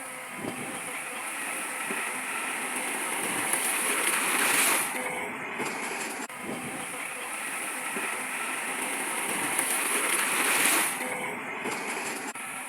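Heavy earth-moving machinery at work: a steady, rough rushing and rattling that swells twice and drops back suddenly each time.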